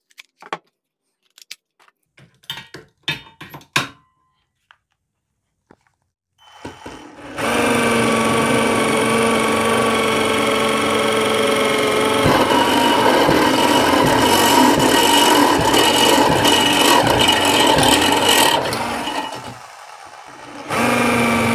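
Clicks and knocks of a battery pack being clipped onto a drill, then a corded electric drill converted to run on an 18 V Makita-fit lithium pack drilling into thin galvanized hollow steel tube: a steady motor whine with a metal-cutting grind. About 19 seconds in it eases off briefly, then runs again near the end.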